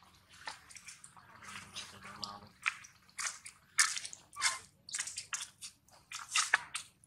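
Adult macaque chewing food: irregular wet, crunchy bites and clicks, sparse at first and coming thicker and louder from about halfway in.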